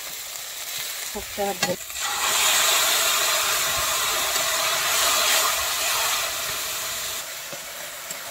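Parboiled taro leaves and prawns tipped into hot oil and fried onion, garlic and spices in an iron kadai: a loud sizzle starts suddenly about two seconds in and eases off near the end, with a metal spatula stirring.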